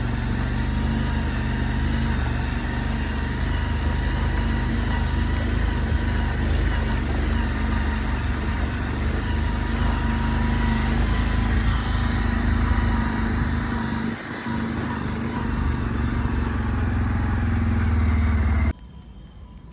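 Diesel engine of a JCB machine running steadily, with a low even drone and a faint steady whine above it; it cuts off suddenly near the end.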